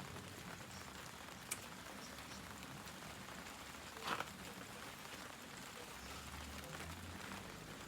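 Steady light rain pattering, faint, with a sharp tick about a second and a half in and a louder short knock about four seconds in.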